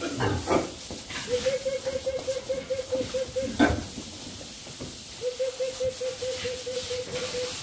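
Water spraying hard from a hose onto the concrete floor and walls of a pig pen, a steady hiss, with pigs jostling and a few sudden squeals or knocks. Twice, a rapid run of short repeated notes, about six a second, lasts about two seconds.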